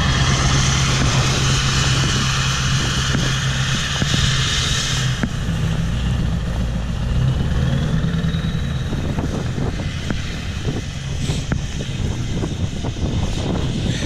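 Ford Super Duty pickup's diesel engine running steadily while it tows a plastic sled through the snow, growing fainter after about five seconds as it drives off. Scattered short crunches and scrapes follow in the second half.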